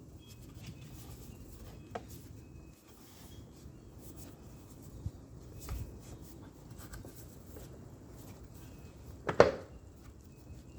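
Torque converter being worked onto the transmission shaft: a few light clicks and rubbing, then one sharp clunk near the end, the click of the converter locking into place on the shaft.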